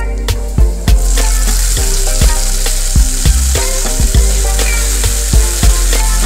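Onions and lentils frying in hot oil in a kadai: a steady sizzle that sets in about a second in. Background music with a steady beat plays over it.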